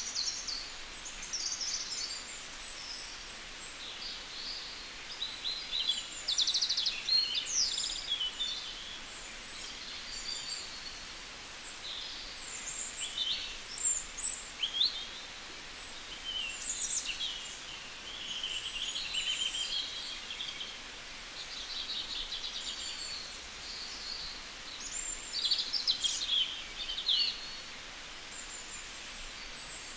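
Several songbirds singing and calling over a steady background hiss: quick high chirps, short trills and slurred whistles, busiest a few seconds in, around the middle and near the end.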